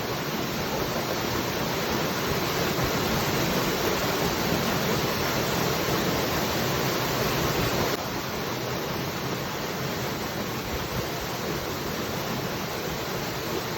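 Waterfall: a steady rush of falling water that eases off a little about halfway through.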